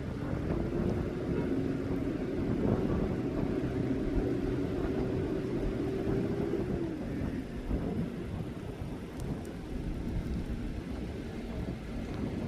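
Steady low rumble with a droning motor hum that holds one pitch for about the first seven seconds, dips slightly and fades out.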